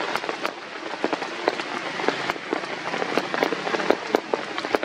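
Rain pattering on wet ground and leaves: a steady hiss with many irregular drop ticks.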